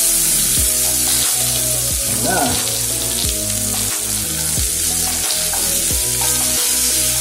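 Sliced red onions sizzling in olive oil in a frying pan, stirred now and then with a wooden spatula. Background music with a steady beat plays underneath.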